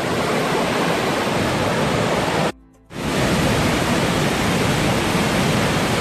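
Large waterfall in spate: a steady, dense rush of falling water pounding into its plunge pool at very high flow. It cuts out for a moment about two and a half seconds in, then resumes unchanged.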